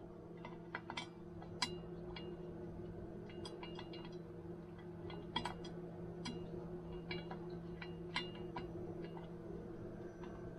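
Small metal parts of a KitchenAid stand mixer's gear train clinking and clicking as they are handled and fitted together, in irregular sharp clicks, some with a short ring, over a steady low hum.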